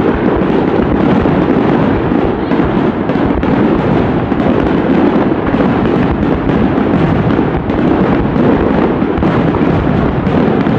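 Fireworks going off in a rapid, continuous barrage: dense overlapping bangs and crackles with no pause.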